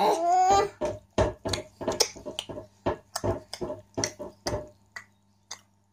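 A brief pitched vocal sound, then a quick run of short, sharp mouth clicks and smacks, about three a second, that stops about four and a half seconds in.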